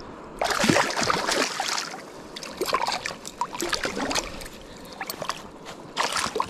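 Water splashing in three irregular bursts around a freshly landed rainbow trout, just before it is released into the river.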